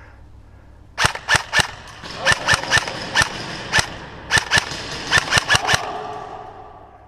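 Airsoft guns firing: about seventeen sharp cracks in short rapid groups and single shots, starting about a second in.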